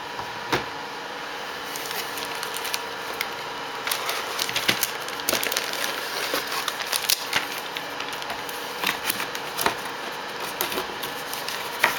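Handling noise from a laptop LCD panel and its packaging: scattered light clicks, taps and crackles, busiest in the middle and latter part, over a steady faint hum.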